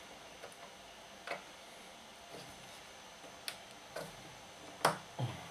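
Scattered light clicks and knocks, about half a dozen, of hands working at stubborn screws on the deck of a portable valve record player; the sharpest click comes near the end.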